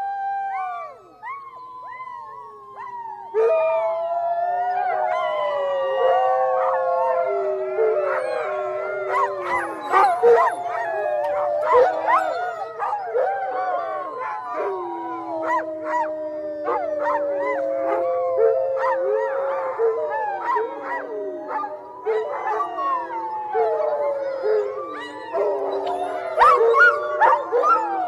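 A pack of wolves howling together: several long, wavering howls overlap at different pitches, with short yips scattered among them.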